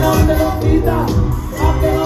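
Regional Mexican band music playing loudly, with singing over a heavy, pulsing bass.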